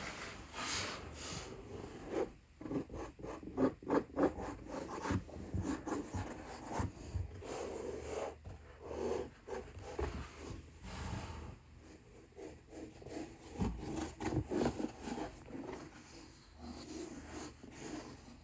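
Hands handling and rubbing a Grant Stone Edward leather boot close to the microphone: irregular rubbing and scratching strokes, some sharper than others.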